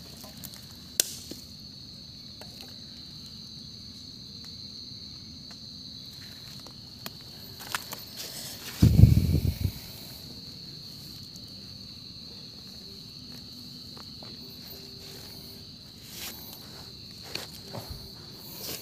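Steady high-pitched chirring of crickets and other night insects, with scattered light clicks and crackles of footsteps in dry leaf litter. About nine seconds in, a loud, low rumbling bump lasts about a second.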